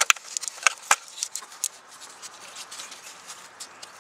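Loose plastic gloves crinkling and rustling right at the microphone as hands work at wiring plugs in an engine bay, with a few sharp clicks in the first second.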